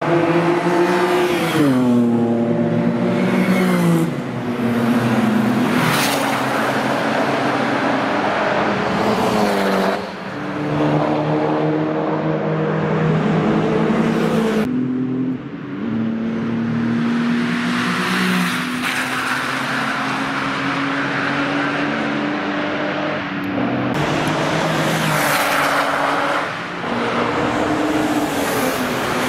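Straight-piped air-cooled flat-six of a 1971 Porsche 911 at full race use, passing and accelerating several times. The engine note climbs and drops with gear changes, with one long steady pull in the middle.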